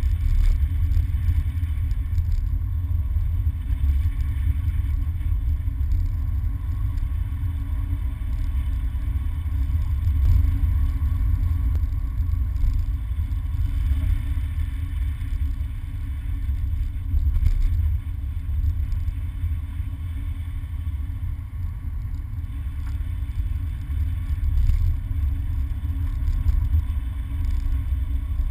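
Car driving on a wet, slushy road, heard from inside the cabin: a steady low rumble of engine and tyre noise.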